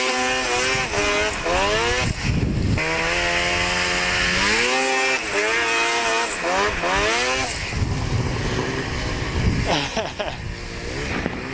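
Ski-Doo 800 two-stroke snowmobile engine revving, its pitch rising and falling again and again as the throttle is worked. After about seven seconds it settles into a steadier, noisier run that gets slightly quieter near the end.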